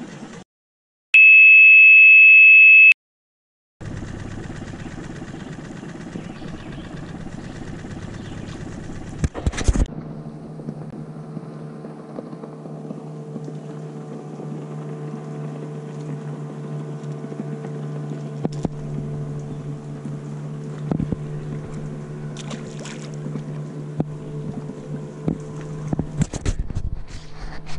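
A loud, steady high-pitched beep lasting under two seconds, with dead silence just before and after it, near the start. After that a steady low hum runs on, with a few scattered clicks and knocks.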